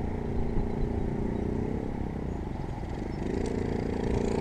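A 1978 Yamaha YZ80 two-stroke dirt bike engine idles with a slightly wavering note. About three seconds in, another dirt bike's engine grows louder and higher in pitch as it rides up.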